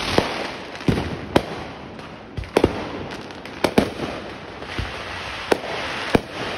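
Aerial fireworks going off: about ten sharp bangs at irregular spacing, some in quick pairs, over a steady hiss between them.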